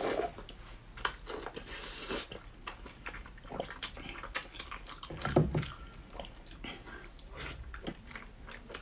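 Close-up biting and chewing of a braised, sauce-coated meat roll, with many short wet mouth clicks throughout and a brief louder low mouth sound about five seconds in.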